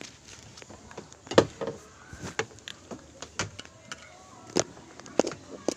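Irregular sharp clicks and knocks, the loudest about one and a half seconds in.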